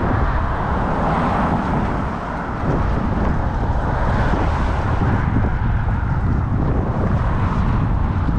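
Steady rushing wind noise on the microphone of a camera riding along on a moving bicycle, rumbling heavily in the low end.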